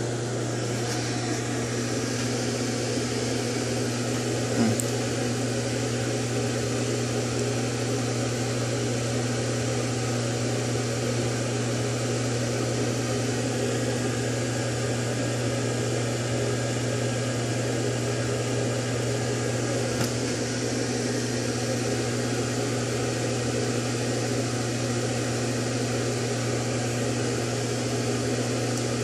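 Ventilation fan running with a steady, unchanging hum and a low drone. A couple of faint knocks come through, one about five seconds in and one about twenty seconds in.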